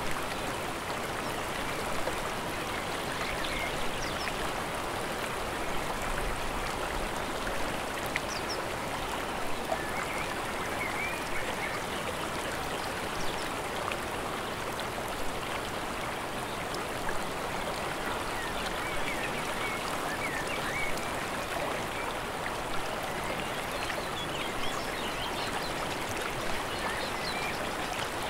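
Mountain stream running steadily, a continuous rush of water, with a few faint bird chirps now and then.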